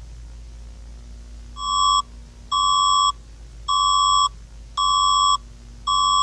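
Electronic emergency-alert attention beeps: a steady tone of about 1 kHz, with a buzzy edge, sounding five times, each about half a second long and about a second apart. A faint low hum runs underneath.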